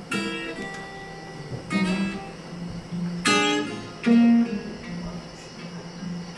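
Background music on acoustic guitar: slow chords strummed and left to ring, a new one every second or two.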